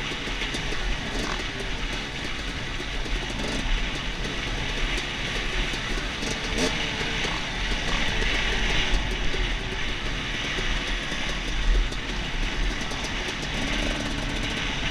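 Dirt bike engine running with its revs rising and falling as it rides a bumpy dirt trail, heard from a helmet-mounted camera with heavy wind noise on the microphone.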